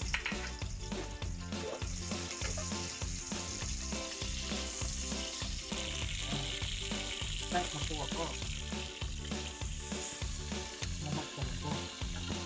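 Sliced garlic and red onions sizzling steadily as they sauté in hot oil in a pot.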